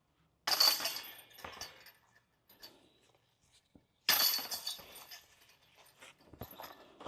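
Two disc golf putts striking the metal chains of a basket, each a sudden jingling crash of chains that rings and fades over about a second; the first about half a second in, the second about four seconds in.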